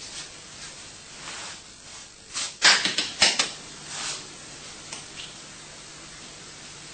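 A few short knocks and rustles of someone handling things close by in a small tiled room, the loudest pair about three seconds in, over a faint steady low hum.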